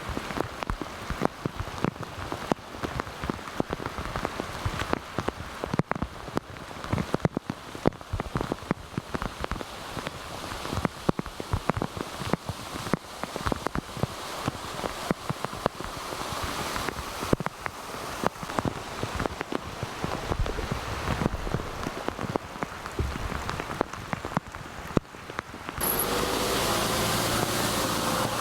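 Heavy rain falling, with many individual drops pattering and striking close by at an irregular pace. About 26 seconds in, the sound cuts abruptly to a steadier, even rushing noise.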